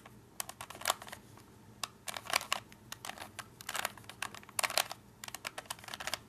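Rubik's cube being turned by hand: quick runs of sharp plastic clicks and clacks with short pauses between. These are the right and bottom faces being turned back and forth over and over to fix a corner.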